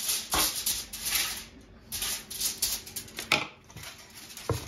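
Silicone spatula scraping and scooping sticky ground-pork paste in a stainless steel mixing bowl: irregular scrapes, with a couple of sharp knocks against the bowl near the end.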